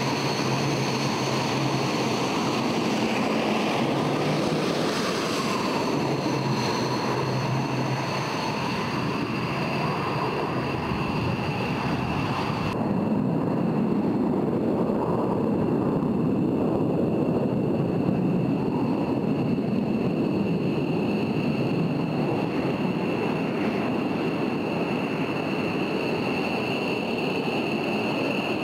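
Dassault Mirage 2000's single SNECMA M53 turbofan. First it runs with a steady high whine over a rumble as the jet taxis. From about 13 seconds in, it gives a louder, deeper rumble at full afterburner on the takeoff roll.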